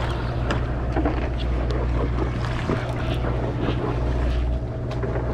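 Steady low drone of a sportfishing boat's engine, with wind and sea noise over it and scattered light clicks.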